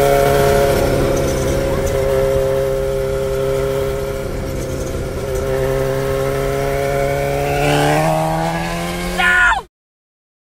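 Sport motorcycle engine running at a steady cruise alongside, an even droning note that climbs slightly in pitch near the end; about nine seconds in it briefly gets louder with a quick swing in pitch, then the sound cuts off abruptly.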